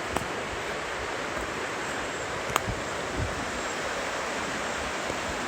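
Fast river rapids rushing steadily, with a sharp click just after the start and a louder one about two and a half seconds in.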